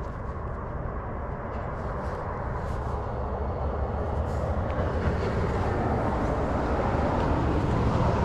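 Low, steady vehicle rumble that grows gradually louder.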